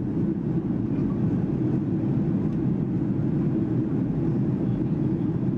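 Jet airliner in cruise heard from inside the passenger cabin: a steady low drone of engines and airflow.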